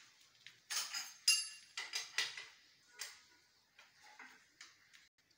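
Irregular light clicks and clinks of hard debris, about ten over a few seconds, the loudest with a brief ring about a second in, growing fainter toward the end: footsteps over broken tile and rubble.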